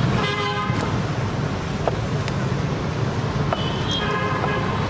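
Steady rumble of street traffic, with a vehicle horn sounding briefly near the start and again near the end. A few light knocks can be heard among it.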